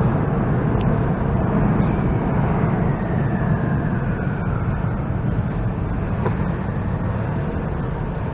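Moscow Metro train rumbling in the tunnel, slowly fading as it moves away, with a faint whine falling in pitch a few seconds in.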